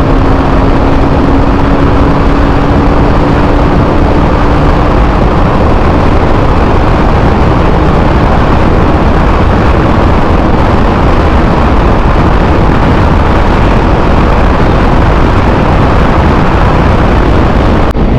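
TVS Apache RR 310's single-cylinder engine running steadily at highway speed, heard under heavy wind rush on the microphone.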